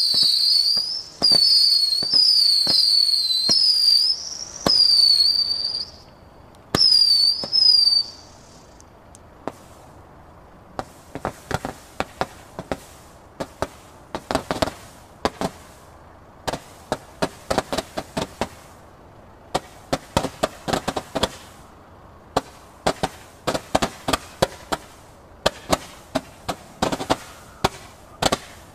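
Northern Lights 56-shot firework candles firing. First comes a string of high whistles, each about a second long, with cracks between them; they stop about 8 seconds in. After a short lull, a red mine candle fires rapid, irregular volleys of sharp pops for the rest of the time.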